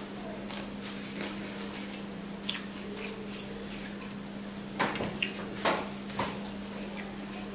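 Close-up eating by hand: wet chewing and short sharp mouth smacks, with a cluster of louder smacks about five seconds in, and fingers squishing rice and curry on a metal plate. A steady low hum runs underneath.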